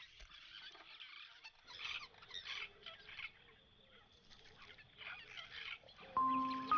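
A group of babblers chattering in repeated harsh bursts. Soft steady music notes come in near the end.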